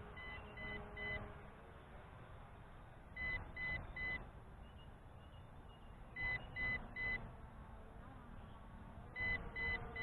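Low-battery warning of an MJX Bugs 5W drone system: sets of three short, high beeps repeating about every three seconds, the alarm that the flight battery is running low.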